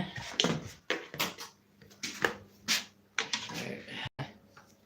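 Irregular knocks, clatter and rustling from handling, about half a dozen sharp knocks over a few seconds, as the vacuum's plastic parts and the camera are carried and moved about.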